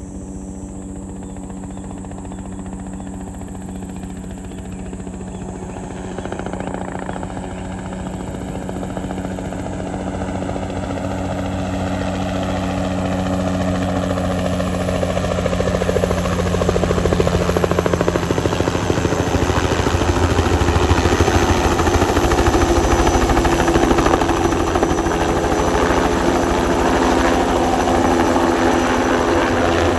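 Crop-spraying helicopter's rotor and engine noise, a steady hum that grows steadily louder over the first twenty seconds or so, then holds at full strength.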